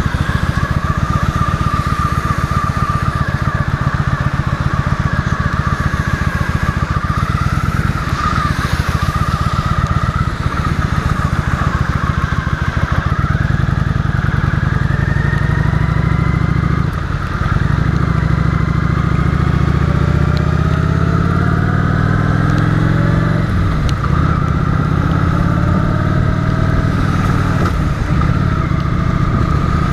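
Motorcycle engine running under way, its pitch climbing as it accelerates, with brief breaks about 17 and 23 seconds in where the gears are changed and the pitch starts lower again.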